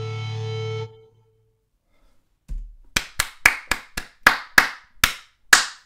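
A metal song's held, distorted electric-guitar chord cuts off abruptly under a second in. After a short silence comes a quick run of about nine handclaps, about three a second.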